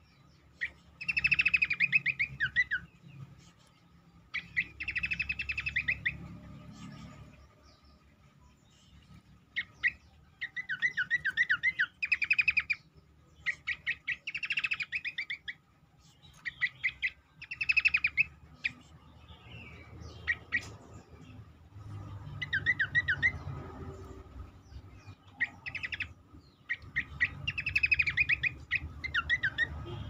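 Cingcoang babbler singing: repeated phrases of fast, rolling trilled notes, each a second or two long, with short sharp chips between the phrases.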